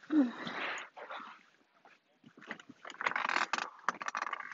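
Rustling and scuffing as a person shifts and climbs across leather seats inside a truck cab, with scattered clicks and knocks. There are two spells of noise: one in the first second, with a short squeak at the start, and a longer one from about three seconds on.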